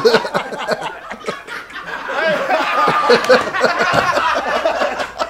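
A group of people laughing hard together, many voices overlapping.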